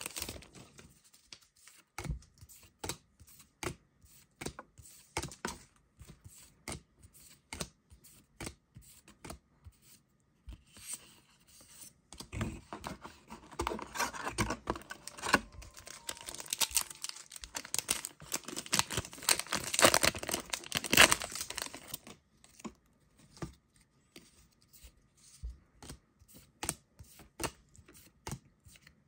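Trading cards being flicked and slid one past another, each giving a sharp click, with foil booster pack wrappers crinkling and tearing. The crinkling and tearing comes in a louder, denser stretch in the middle, and the card clicks carry on alone before and after it.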